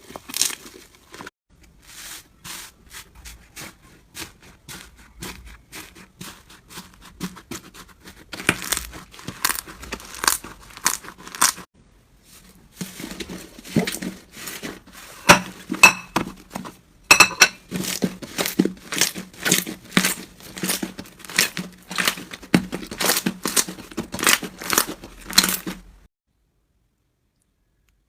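Slime being handled by hand, with sticky crackling and popping clicks that come in runs, about two a second in the later part. It stops abruptly shortly before the end.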